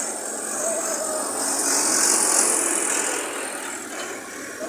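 Farm tractors in a convoy driving past on a dirt road, their engines and the traffic noise swelling about two seconds in and easing toward the end.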